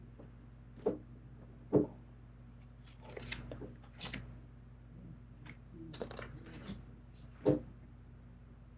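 Tarot cards being handled on a table: sharp taps as cards are set down on the decks, the loudest a little under two seconds in and another near the end, with light rustling of cards sliding off and onto the piles between them.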